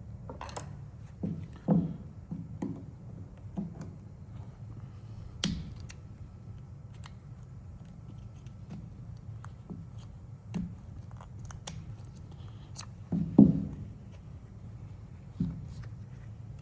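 Hand tools working at the metal casing of a 9-volt battery to open it: scattered clicks and knocks over a low steady hum, with louder clanks about two seconds in and again a few seconds before the end.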